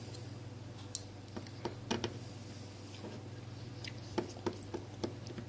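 A small screwdriver working tiny screws out of a smartphone's plastic rear housing: scattered light clicks and ticks, about a dozen, irregularly spaced.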